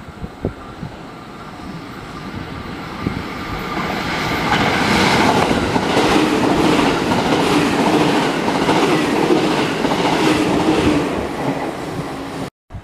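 A JR Central electric multiple-unit train passes through the station at speed without stopping. Its running noise builds, peaks with a rapid clickety-clack of wheels over rail joints and a steady hum, then fades, and cuts off abruptly near the end.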